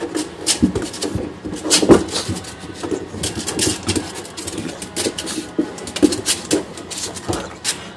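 Pug scrabbling and rolling on a quilted mat over a hard floor: irregular scratching, claw clicks and bumps, loudest about two seconds in.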